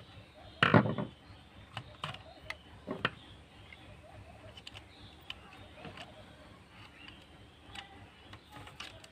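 Handling noises from a speed-controller board and its loose wires being moved on a table: one loud knock about half a second in, then scattered light clicks and taps.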